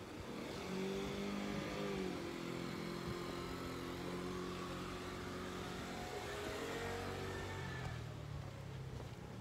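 A motor vehicle's engine running close by, starting about a second in. Its pitch steps up and down as it revs.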